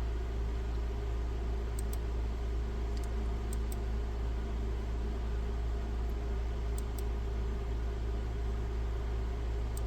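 Steady low electrical hum with a soft hiss, and a few faint light clicks scattered through it.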